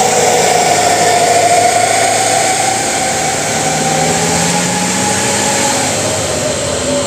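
Heavy trucks' engines labouring up a steep climb. A steady high whine slowly falls in pitch, and a lower engine note rises about four seconds in.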